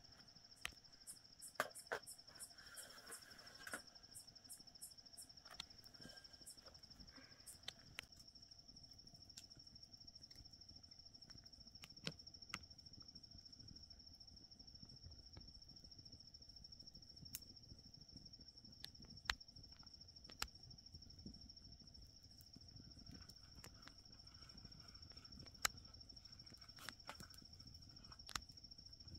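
Crickets trilling steadily on one high, unbroken note, with scattered soft clicks and taps of a plate and bread being handled, busiest in the first few seconds.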